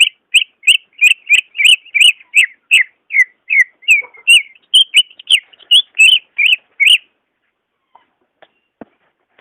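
Cucak ijo (green leafbird) singing: a fast, loud run of short, sharp whistled notes, about three a second, that stops about seven seconds in.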